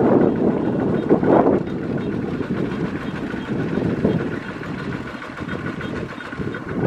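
Kubota two-wheel walking tractor's single-cylinder diesel engine running loudly and steadily, swelling louder about a second in.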